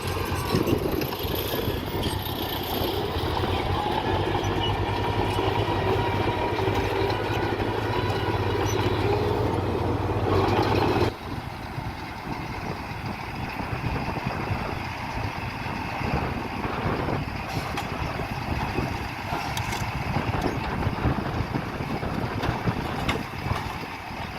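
Diesel engines of construction machinery running steadily, with a deep even hum. About halfway through, the sound changes abruptly to a quieter, rougher engine sound.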